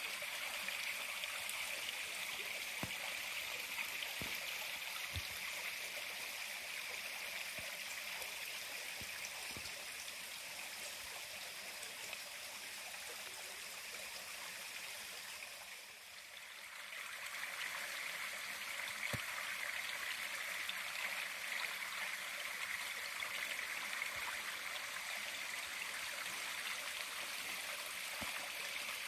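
Steady rush of flowing stream water that fades briefly about halfway through and then returns, with a few faint knocks.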